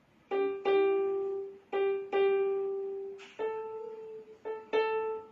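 A slow melody played one note at a time on an instrument: about seven notes, mostly in close pairs, each struck and left to ring and fade. The tune steps up to a higher note a little past the middle, as someone practises the song.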